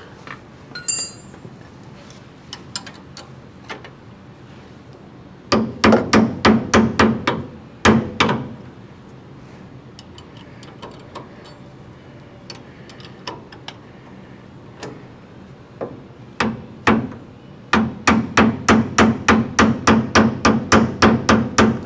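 Hammer tapping on a 1957 Chevy's steering linkage, striking the ball-stud joint of a new center link to seat it while its nut is tightened ("tap and tighten"), because the ball stud spins with the nut. Two runs of quick metal strikes, about five a second, the first about five seconds in and the second near the end.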